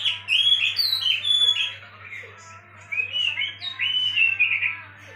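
Oriental magpie-robin song used as a lure: rapid strings of varied whistled notes in two bursts with a short pause between, over a steady low hum.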